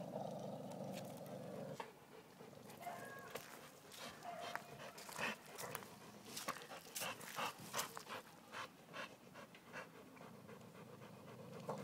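An American Staffordshire terrier and a Dogo Argentino panting hard in short, irregular breaths during rough mouth-to-mouth play, after a low rumble in the first couple of seconds.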